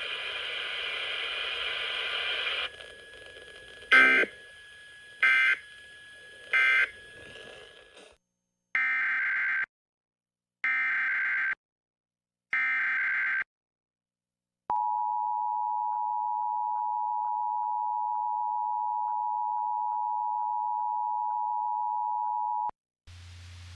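Emergency Alert System signalling off a radio broadcast. After a few seconds of hiss come three short end-of-message bursts of warbling digital data tones, then three longer SAME header bursts of the same data tones. Then the EAS two-tone attention signal holds steady for about eight seconds and cuts off sharply.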